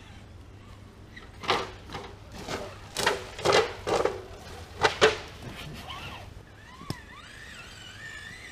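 A handful of loud, irregular crunches and rustles in dry leaf litter and twigs, between about one and a half and five seconds in, then a single sharp click. Birds chirp near the end.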